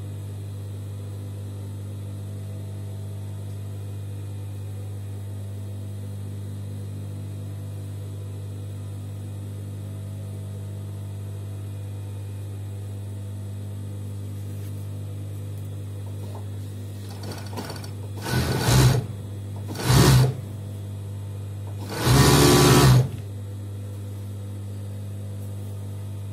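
Industrial overlock (serger) machine humming steadily as it idles, then stitching in three short runs near the end, the last and longest about a second, as it sews an elastic waistband onto gathered skirt fabric.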